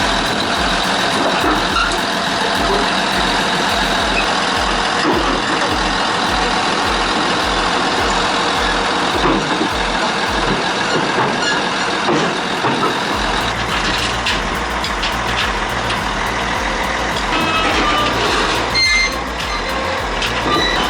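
Heavy diesel machinery running, with a back-up alarm beeping.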